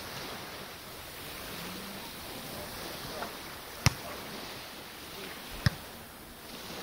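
A volleyball struck twice by players' hands during a rally: two sharp slaps a little under two seconds apart, over a steady background hiss.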